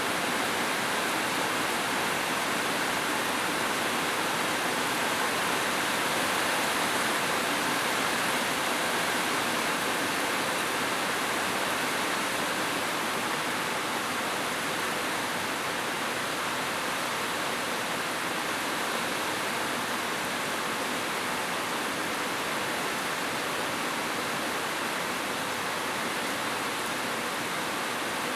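Steady rush of flowing water, an even hiss-like roar with no distinct splashes or breaks.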